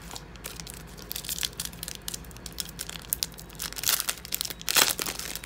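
Foil trading-card pack (2016 Donruss football) crinkling and crackling as it is handled and torn open, with the loudest crackles about four to five seconds in.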